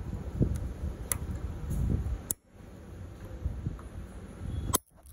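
A few light metallic clicks as a pointed pick works at the retaining snap ring on a car A/C compressor's pulley, over low rumbling handling noise. The sound cuts out briefly twice.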